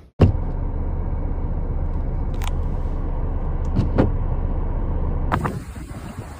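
A motor vehicle's steady low rumble with a muffled top, broken by a few sharp knocks. About a second before the end it gives way to wind noise on the microphone.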